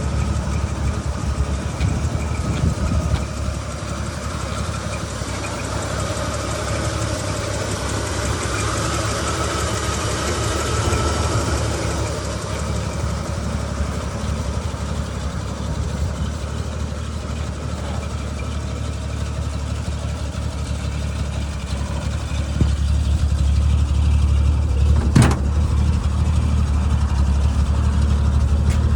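The 1947 Chevrolet truck's inline-six engine idling steadily, growing louder about three quarters of the way through, with a single sharp click shortly after.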